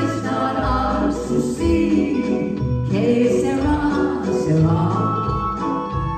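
A woman singing a song into a handheld microphone over instrumental accompaniment with a steady bass line.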